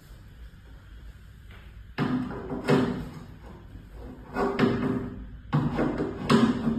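A series of sharp metal knocks and clanks, starting about two seconds in, as a caster wheel's steel mounting bracket is pushed and knocked into place on a metal cart base frame; each knock rings briefly.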